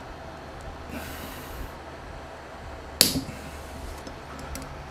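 A steel bolt seized in the aluminium spindle carriage breaks free under an Allen wrench with a single sharp crack about three seconds in. A low steady hum runs underneath.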